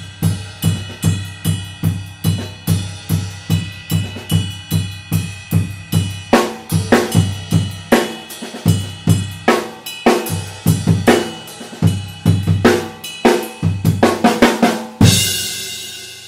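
Drum kit with Sabian HH and HHX cymbals played in a steady groove, a low drum beat about twice a second under a cymbal that keeps ringing. About six seconds in the cymbal strokes get louder and busier, and near the end one big cymbal crash rings out and fades away.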